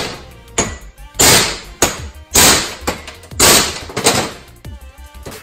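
Hammer striking a socket to drive a new wheel bearing into a hub: loud metallic blows about once a second, each ringing briefly, with lighter taps between them.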